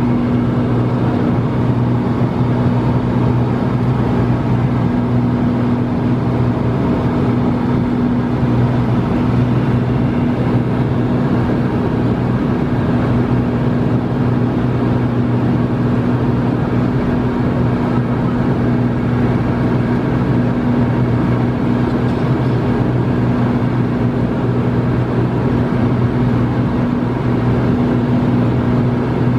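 Engine and propeller of a high-wing light aircraft heard inside the cabin in flight: a steady, even drone with a low hum that does not change in pitch.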